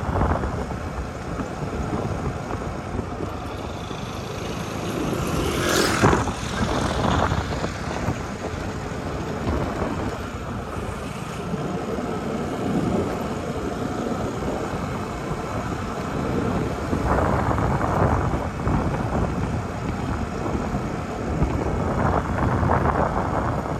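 Motorcycle riding along a road: wind rushing over the microphone with the bike's running engine and tyre noise underneath. A brief louder whoosh comes about six seconds in.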